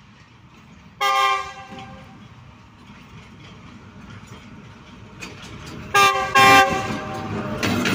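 Diesel locomotive horn sounding on an approaching heavily loaded coal train: one short multi-tone blast about a second in, then two short blasts in quick succession near the end, with the rumble of the oncoming train growing louder as it nears.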